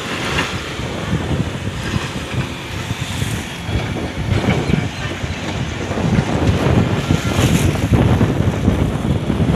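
Wind buffeting the microphone: a rough, uneven rumble that rises and falls without any rhythm.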